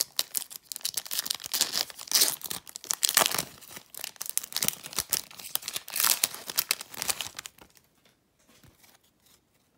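A 2013 Fleer Retro trading-card pack wrapper being torn open and crinkled by hand, an uneven crackling that stops about two seconds before the end.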